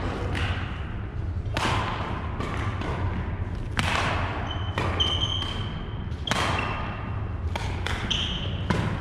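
Badminton rallying: rackets strike the shuttlecock in sharp hits about a second apart, and sneakers squeak briefly on the wooden court floor. A steady low hum runs underneath.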